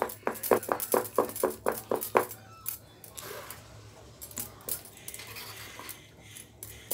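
A spoon stirring thick wheat-flour and jaggery batter in a stainless steel bowl: quick rhythmic strokes, about four a second, for the first two seconds, then slower scrapes and light clinks of the spoon against the bowl.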